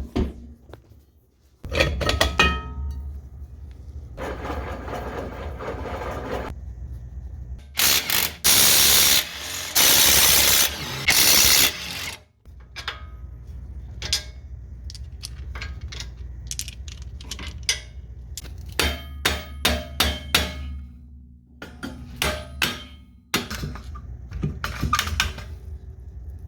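Hand and power tools at work on a car's wheel hub during a wheel bearing replacement: repeated sharp metal clanks and knocks, a few loud bursts about a second long from a power tool, and quick runs of clicking.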